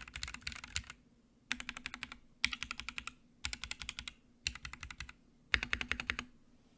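Typing on a custom polycarbonate Sirius mechanical keyboard with Gateron Black Ink v2 linear switches (lubed, with films), a POM plate and PBT keycaps. Rapid keystrokes come in six quick runs of about a second each, with short pauses between them.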